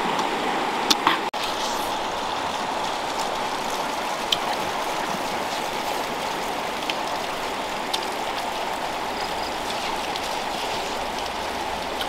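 A shallow river running over stones, a steady rushing, with a few brief clicks, the sharpest about a second in.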